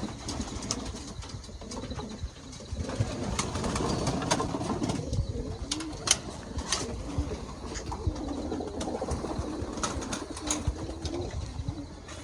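Racing pigeons cooing in their loft, repeated low rolling coos, with scattered sharp clicks and taps.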